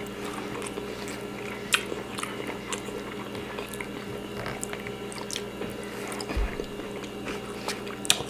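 People chewing food close to the microphone, with scattered wet mouth clicks and smacks, over a steady low hum.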